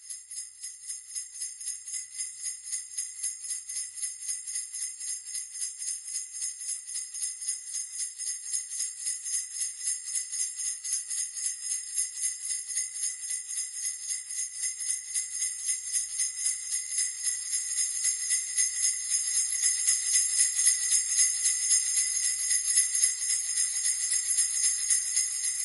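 Sleigh bells jingling, shaken in a steady even rhythm of about four shakes a second, growing gradually louder.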